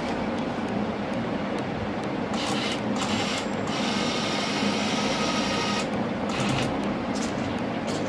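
Small electric gear motors of a homemade wheeled robot whirring as it drives and turns under radio remote control. The whir rises to a higher, steady whine for about two seconds from around three and a half seconds in.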